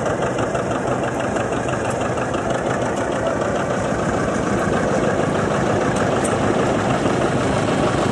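Vintage John Deere two-cylinder tractor engine running steadily with an even, regular beat, moving the tractor along at low speed.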